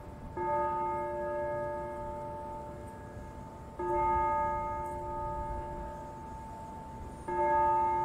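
A low-pitched church bell tolling: three strikes about three and a half seconds apart, each ringing on and slowly fading into the next.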